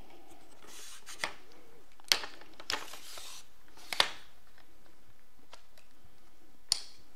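Aluminium tripod legs being extended by hand: the leg sections slide out with a short rubbing hiss, and the flip-lock leg clamps snap shut with several sharp clicks.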